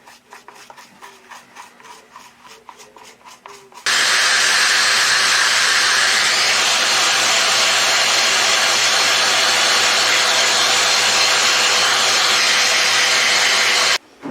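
Quick, even rhythmic rubbing strokes, typical of scrubbing a part. About four seconds in, a loud, steady rushing noise with a faint motor hum starts abruptly and cuts off suddenly near the end.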